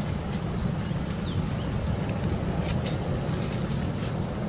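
Steady low outdoor rumble, with faint short chirps and light crackles scattered above it.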